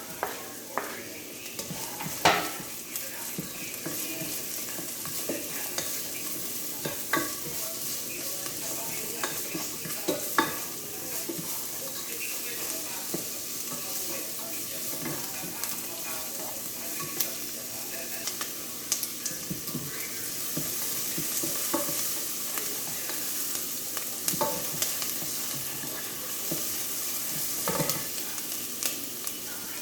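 Chicken sizzling in a hot pan while it is stirred, a steady hiss broken by sharp knocks of the utensil against the pan, the loudest about two seconds in and again around ten seconds.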